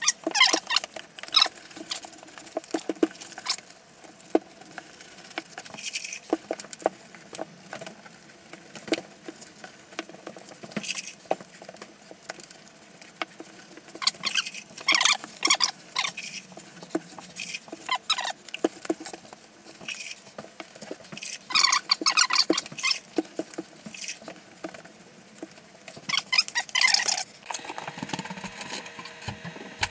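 Irregular squeaky rubbing and light tapping on glass mosaic tile, in short bursts, from grout work on the backsplash. A steady hum comes in near the end.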